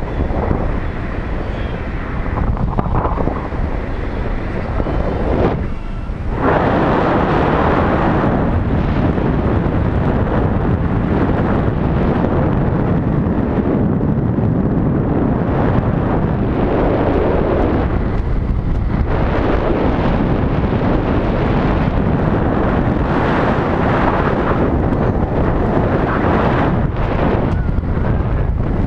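Wind buffeting the microphone of a pole-mounted action camera held by a parasailer in flight. It makes a steady rushing noise that gets louder about six seconds in.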